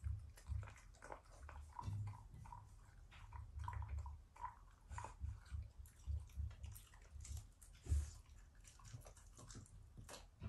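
A black Shiba Inu making short, high whimpering squeaks, one after another, about two to five seconds in, along with mouth and chewing noises, light clicks and low bumps.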